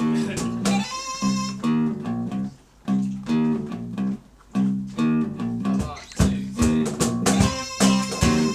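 Acoustic guitar strumming chords in a steady rhythm, the instrumental intro to a folk song. About six seconds in, the playing turns sharper and low percussive thumps join the beat.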